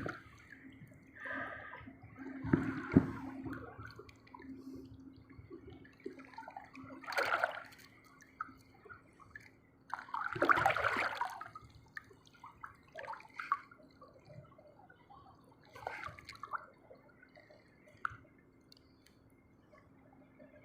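Water splashing and sloshing in irregular bursts a few seconds apart, like small waves washing against the shore; the largest bursts come about three seconds in and about eleven seconds in.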